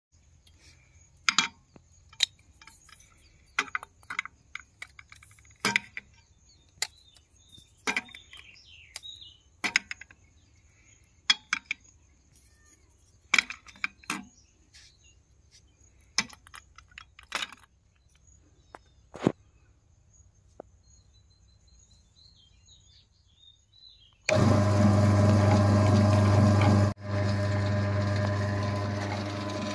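Plastic LED bulbs clicking and clacking as they are handled on and off a ceramic plate, a scatter of sharp separate knocks. About three quarters of the way through, a loud steady machine hum starts suddenly, drops out for a moment a few seconds later, then goes on a little quieter.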